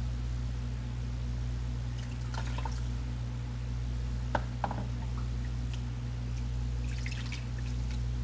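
Water poured from a cup over a puppy's wet fur into a plastic tub, splashing and dripping in three short pours, over a steady low hum.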